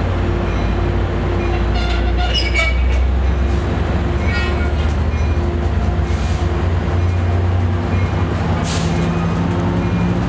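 Sounder commuter train of bilevel coaches hauled by an EMD F59PHI diesel locomotive, rolling slowly past along the platform with a steady low diesel rumble. Short high squeals come from the train a couple of seconds in and again around four to five seconds in, and there is a brief hiss near the end.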